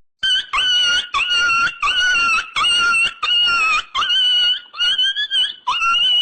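A sound effect of about nine short, high-pitched squeaky yelps in quick succession, each about half a second long and sliding up at its start.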